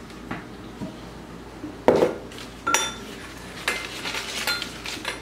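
A glass measuring cup knocking and clinking on the countertop as it is moved and a piping bag is set into it. There is a dull knock about two seconds in, then several short clinks that ring briefly.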